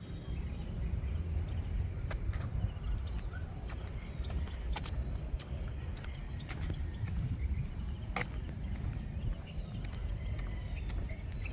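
Insects calling steadily: one high continuous trill and a slightly lower chirping that pulses in a fast even rhythm. Under them runs a constant low rumble, and a few sharp clicks stand out, the loudest about eight seconds in.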